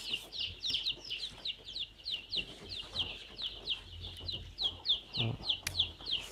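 A flock of young chicks, about eight days old, peeping steadily: a fast, unbroken run of short, high, falling peeps, several a second.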